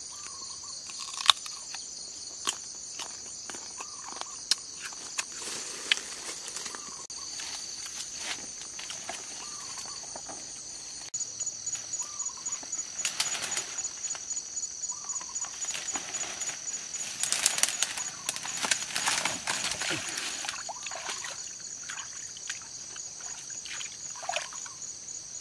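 Steady high-pitched chorus of crickets, pulsing rhythmically for a while in the middle, with a short call repeating every few seconds. Sharp clicks of a knife blade cutting into a green fruit come in the first few seconds, and leaves and brush rustle later as someone pushes through undergrowth.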